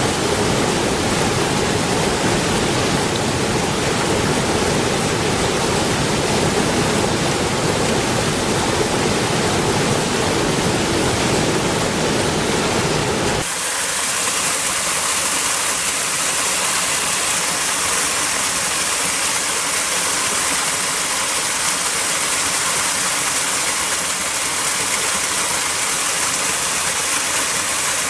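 Waterfall, a steady loud rush of water. About halfway through, the sound changes abruptly to a thinner, hissier rush with much less low rumble.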